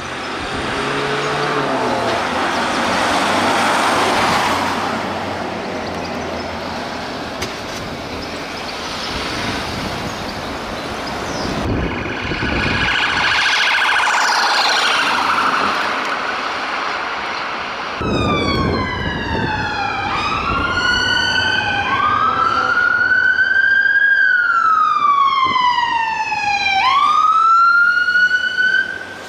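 Armoured police Land Rovers and a police car driving past, with engine and tyre noise, then in the last third a police siren wailing in overlapping sweeps that rise and fall in pitch.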